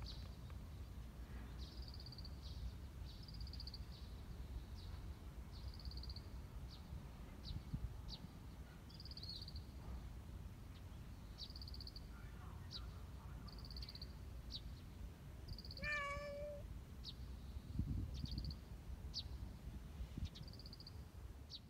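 A black long-haired Persian cat gives one short meow about three-quarters of the way through. High-pitched chirps and short trills repeat about once a second over a steady low rumble.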